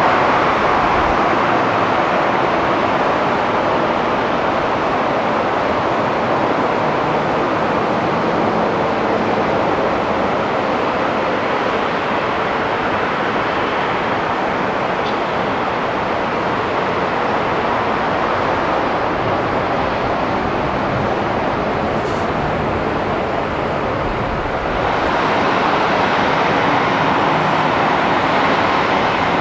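Steady airport apron noise: a continuous rushing roar of jet engines and aircraft running at a distance. About 25 seconds in the noise changes and turns a little brighter.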